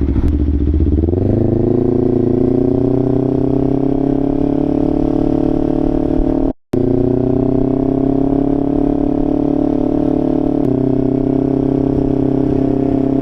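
2025 Kawasaki Ninja 500's parallel-twin engine through a Leo Vince LV Corsa exhaust, accelerating under way. Its pitch rises quickly over the first couple of seconds, then climbs slowly and holds fairly steady. The sound drops out for a split second about halfway through.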